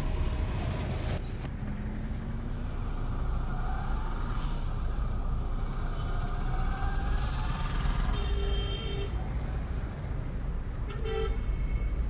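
Street traffic with motor scooters and motorcycles running, and a vehicle horn tooting twice: a blast of about a second some eight seconds in and a shorter one about three seconds later.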